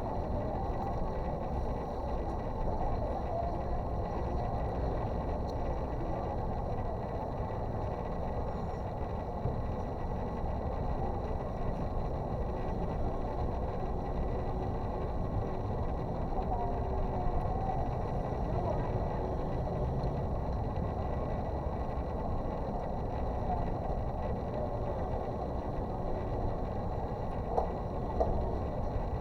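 Steady low rumble of background noise with faint distant voices, and a couple of small ticks near the end.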